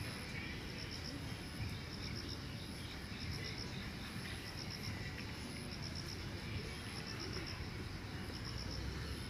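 Insects chirping: short trains of rapid high pulses repeating every couple of seconds, with a higher trill above, over a low steady background rumble.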